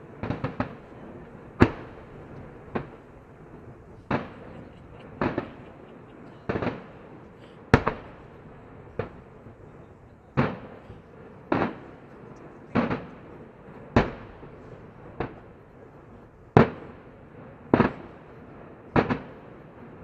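Aerial firework shells bursting in a steady sequence, a sharp bang about every second and a quarter, each followed by a short echo.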